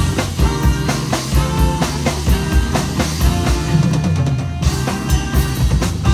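Live rock band playing an instrumental passage: a steady drum-kit beat with electric bass, guitar and saxophone.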